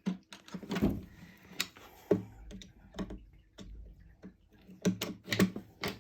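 Irregular clicks and knocks of wooden flat-pack dresser parts and round cam-lock fittings being handled and fitted by hand.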